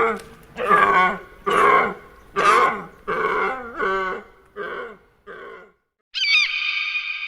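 An animal giving a run of eight short pitched calls, about one every two-thirds of a second, growing fainter toward the end. About six seconds in, a different, higher, steady call begins.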